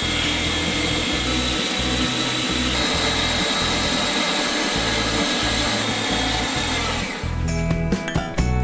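Mini milling machine running a boring bar through an aluminum block to finish a 15 mm bore: a steady whirring cut with a high whine, which stops about seven seconds in. Background music with a plucked guitar plays underneath and is left alone at the end.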